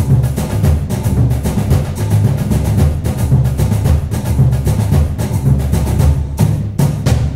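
Background music with drums and a steady beat, starting to fade near the end.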